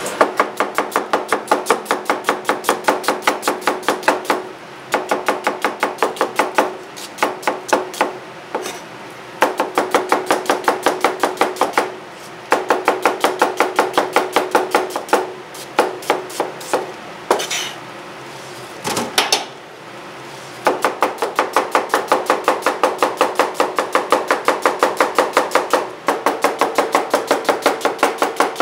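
Fast knife chopping: a kitchen knife slicing an onion on a cutting board, about five strokes a second in runs of a few seconds with short pauses between. A steady hum runs underneath.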